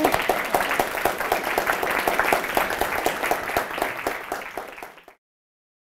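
An audience applauding, the clapping slowly thinning before it cuts off abruptly about five seconds in.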